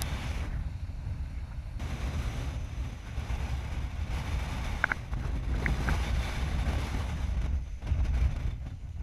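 Wind buffeting an open-air action-camera microphone, a steady low rumble with a rushing hiss over it. A few brief high chirps come about five seconds in.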